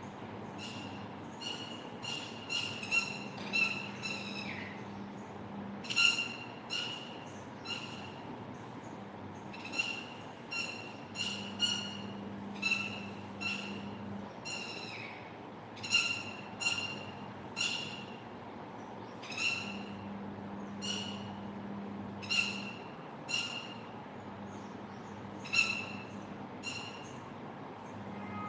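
House sparrows chirping: a run of short, sharp chirps repeated at an uneven pace, a few of them sliding downward in pitch.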